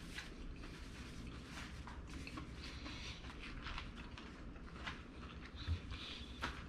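Faint chewing and soft mouth clicks of a person eating a mouthful, over a low steady hum, with a slightly sharper click near the end.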